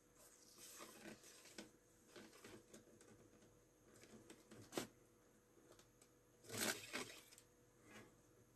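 Near silence with faint scrapes and light clicks as a thin wire is drawn through the emptied lamp channel of an LCD panel's metal frame. The sharpest click comes about five seconds in, with a short cluster of scrapes a couple of seconds later.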